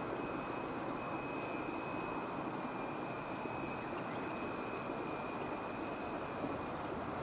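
Steady outdoor background hiss. A faint, thin, high steady tone is held for about six seconds and fades out near the end.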